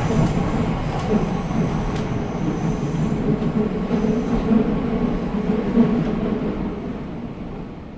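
A steady low rumbling noise that fades out near the end.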